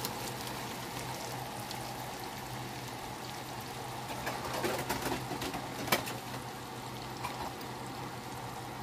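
Butter bubbling and sizzling as it melts in a saucepan with a bar of chocolate, over a steady low hum, with small crackling ticks and one sharp click about six seconds in.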